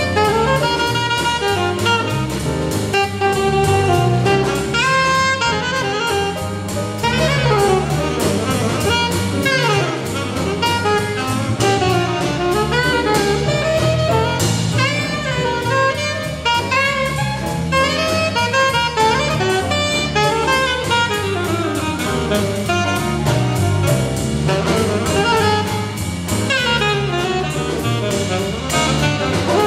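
Alto saxophone soloing in a live jazz big band, playing quick rising and falling runs over the drum kit and rhythm section.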